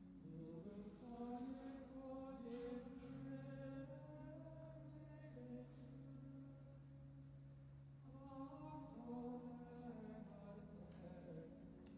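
Faint, slow sacred chant: singing voices hold long notes over a sustained low note.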